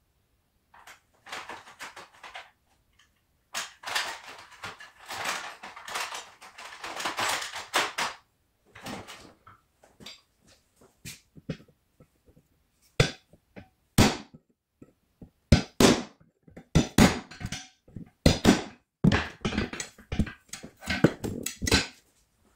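Metal snowblower shaft assembly being handled and worked with a hand tool on a wooden block. It begins with a few seconds of rustling and scraping, then from about halfway through comes a run of sharp, irregular clicks and knocks, the loudest sounds here.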